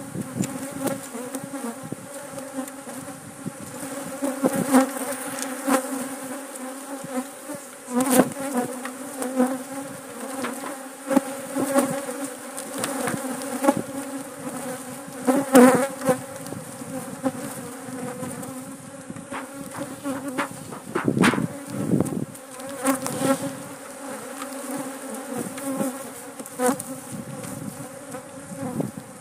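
A swarm of honeybees buzzing in a steady, dense drone close around the microphone. This is a defensive colony stirred up by the honey harvest. A few sharp knocks cut through it, the loudest about 8 s, 16 s and 21 s in.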